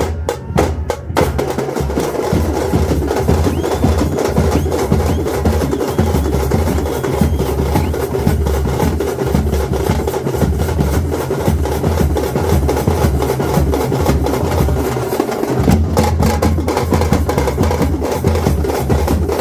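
Background music with a steady, driving drum beat and heavy bass. The beat drops out briefly about fifteen seconds in.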